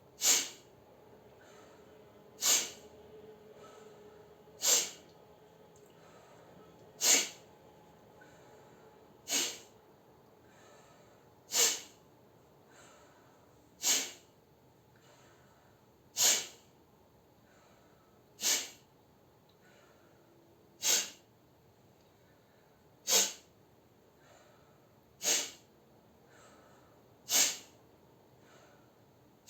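Short, sharp, forceful exhalations through the nose, as if stifling a sneeze, repeated evenly about every two and a quarter seconds, with a faint breath drawn in through the mouth between them. This is the nasal-clearing 'breath-sneeze' breathing exercise.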